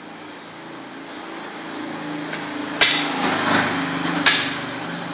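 Two sharp knocks about a second and a half apart, over a steady mechanical drone that swells in the middle.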